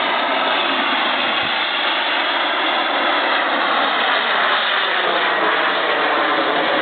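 Model jet's gas turbine engine running loud and steady as the RC jet flies close by, its whine drifting slowly in pitch.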